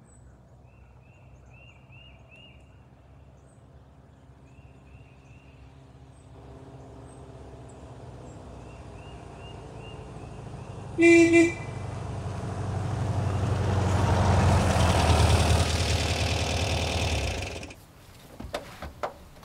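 Air-cooled flat-four engine of a 1973 Volkswagen camper bus approaching and growing louder, with two short horn toots about halfway, then the engine shuts off and a few clicks follow. Faint bird chirps are heard at the start.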